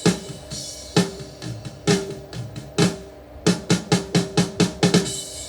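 A drum struck hard, each hit ringing with a low pitched tone that drops slightly. Four single hits come about a second apart, then a quick run of about eight hits.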